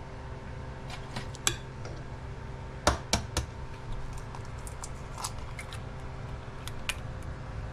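Metal spoon clinking against a ceramic dish of lablabi, a handful of sharp clinks scattered through, the loudest a quick cluster of three about three seconds in, over a steady low hum.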